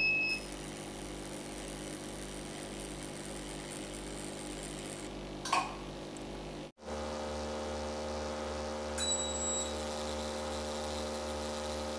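CO2 fractional laser machine humming steadily, with a short high beep near the start and another about nine seconds in. The hum cuts out for a moment about seven seconds in and comes back at a different pitch.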